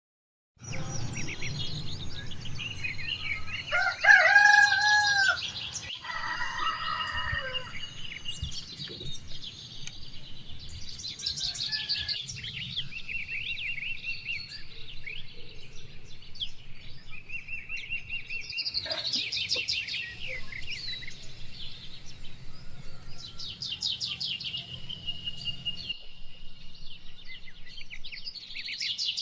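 Small birds chirping and twittering continuously, with a rooster crowing once about four seconds in, the loudest sound, followed by a shorter fowl call. A low steady hum underneath stops near the end.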